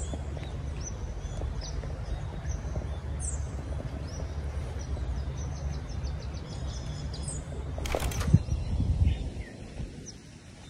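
Outdoor ambience: small birds chirping in short, scattered calls over a steady low rumble of wind on the microphone. There is a brief sharp knock about eight seconds in.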